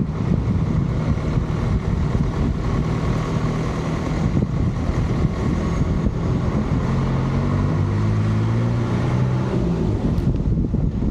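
Wind buffeting the microphone over a motor running under way. The engine's note comes through more clearly in the second half.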